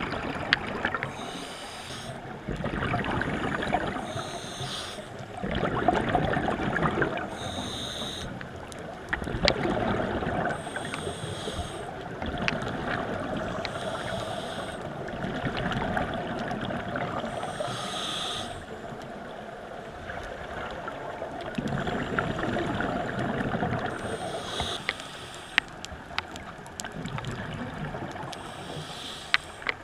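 Scuba diver breathing through a regulator underwater. Each inhale is a short hiss, coming about every three to four seconds, and between them each exhale is a longer burst of bubbling.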